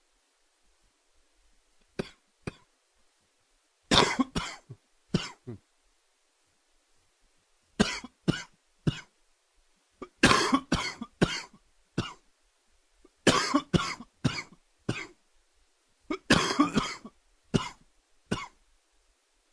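A man coughing from a summer cold: a couple of single coughs, then repeated fits of three to six coughs each with short pauses between.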